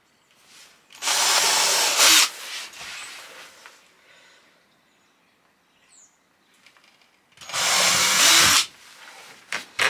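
Cordless drill boring guide holes through 12 mm plywood floor panels. It runs in two bursts of just over a second each, about six seconds apart.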